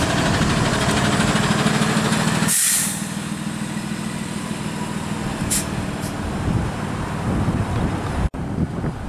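Flatbed tow truck's engine running close by as it pulls past, loudest for the first couple of seconds, with a sharp hiss of its air brakes about two and a half seconds in and two shorter hisses around five and a half and six seconds.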